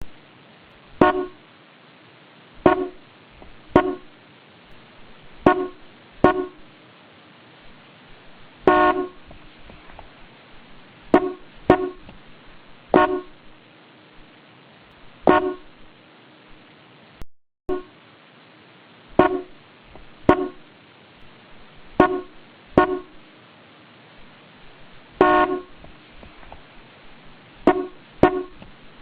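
Mitsuba TRAD SH-41 car horn sounded in about nineteen short toots at irregular intervals, some in quick pairs and a couple held a little longer, with a steady faint hiss between them.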